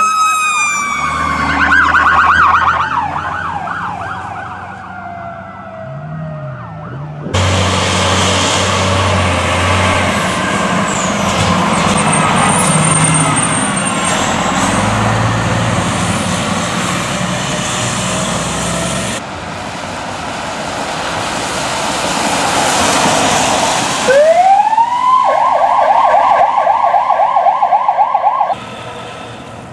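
Fire trucks responding with sirens: a siren's tone slides slowly down over the first few seconds over low air-horn blasts, a noisy stretch follows as an engine passes close with its siren wailing, and near the end an electronic siren rises and switches to a fast yelp. The sound changes abruptly several times as one truck gives way to the next.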